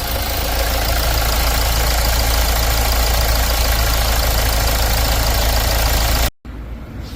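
Hyundai Maxcruz diesel engine running at idle, loud, with a steady low drone under a dense clatter. It cuts off abruptly about six seconds in, and quieter running follows.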